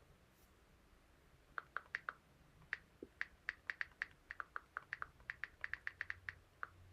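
Typing on a computer keyboard: a run of quick, irregular key clicks that starts about a second and a half in.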